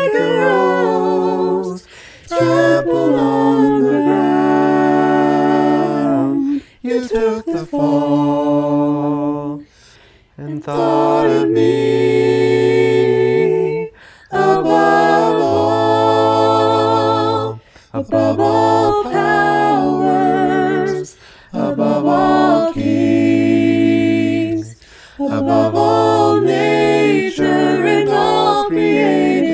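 Several voices singing a cappella in harmony, with no instruments: held, sung phrases separated by short breaths every few seconds.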